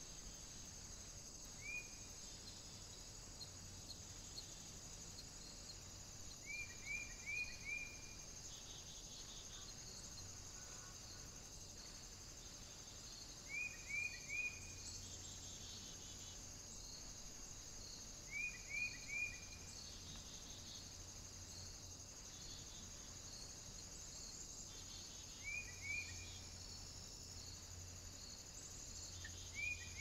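Steady high-pitched insect chorus, with short high chirps in groups of three or four recurring every four to seven seconds.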